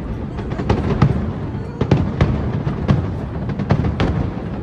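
Aerial fireworks bursting overhead: a rapid, irregular string of bangs and crackles over a continuous low rumble.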